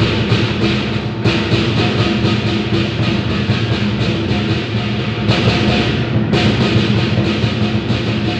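Lion dance percussion played live: a large drum beaten in a fast, steady rhythm with hand cymbals clashing along on the beat.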